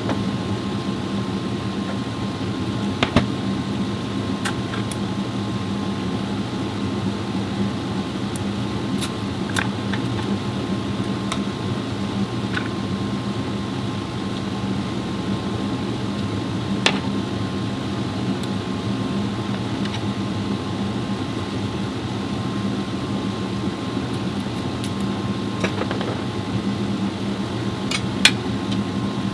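Steady machine hum with a few short sharp clicks, the clearest about 3, 17 and 28 seconds in.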